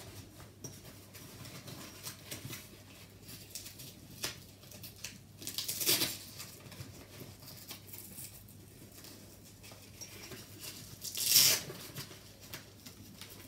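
Handling noise of a stroller bassinet's fabric cover being tucked and pressed onto its aluminium-and-plastic frame: soft rustling and small clicks, with two short, louder scratchy rasps about six and eleven seconds in.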